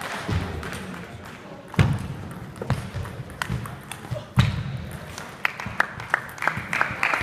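Table tennis rally: sharp clicks of the celluloid ball off bats and table, two of them louder with a heavy thud beneath. Near the end a ping-pong ball bounces to rest, its bounces coming quicker and quicker. Background chatter of a large hall underneath.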